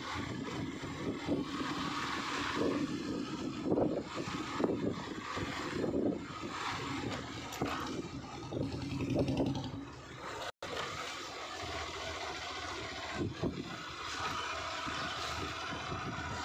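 A vehicle's engine running as it drives along a street, with road and wind noise that swells and eases. The sound cuts out completely for an instant a little past ten seconds in.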